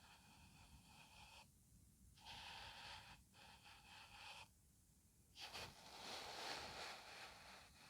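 Breathy whispering or breathing close to the microphone, in three stretches of one to two and a half seconds each with brief pauses between.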